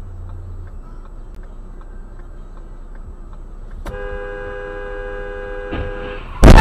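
Car horn sounding steadily for about two seconds over low road noise, then a loud crash near the end: a T-bone collision as a red-light runner is hit.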